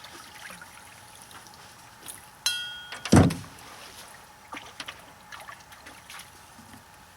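A short metallic ring about two and a half seconds in, then a heavy thump, the loudest sound, followed by small clicks and handling noises.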